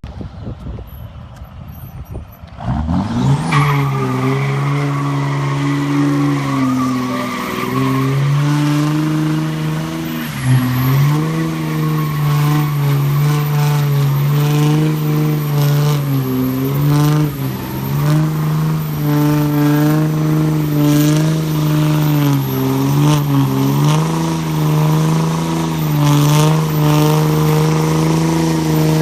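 Diesel pickup truck doing a burnout: starting about three seconds in, the engine is held at steady high revs with brief dips now and then, over the hiss of spinning tyres.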